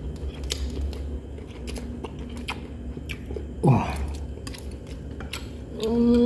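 Eating sounds: chewing and scattered light clicks of chopsticks and a spoon against a glass bowl of noodles and shellfish. About three and a half seconds in, a brief loud sound falls sharply in pitch, and near the end a voice hums steadily.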